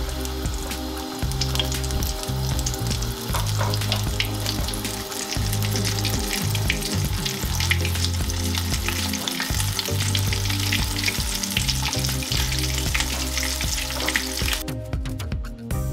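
Flour-coated chicken drumsticks deep-frying in a pan of hot oil: a steady crackling sizzle, full of small pops, that cuts off suddenly near the end. Background music with held bass notes plays underneath.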